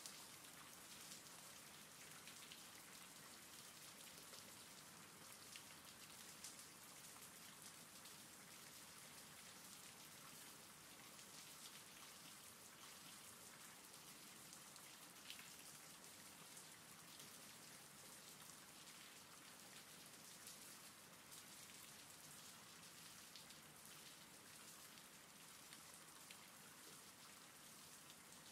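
Faint, steady rainfall with many small individual drop ticks scattered through it.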